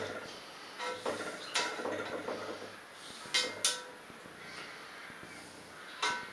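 Cooking utensil knocking and scraping against an enamelled cast-iron pot during stirring: scattered sharp clinks with a short ring, a pair about three and a half seconds in and another near the end.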